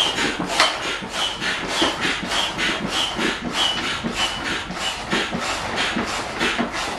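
Foot pump worked in quick, even strokes, each one a short rush of air through the hose, a little under two a second, inflating the rigid keel of an inflatable boat.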